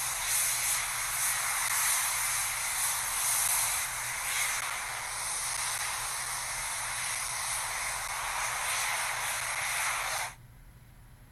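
Steady loud hissing rush of the Flyboard Air's jet turbines in flight, cutting off suddenly about ten seconds in.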